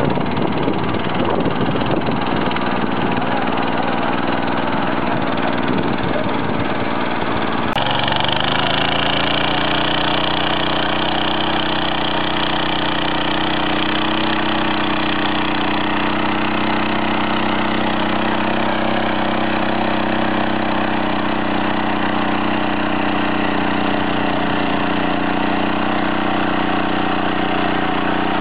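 Small engine of a walk-behind power weeder running steadily under load as it works the soil. The sound changes abruptly about eight seconds in to another take of the machine pulling a ridging attachment, again with a steady, even engine note.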